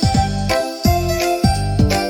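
Instrumental children's song music with a steady beat of low thumps about twice a second under held bright notes.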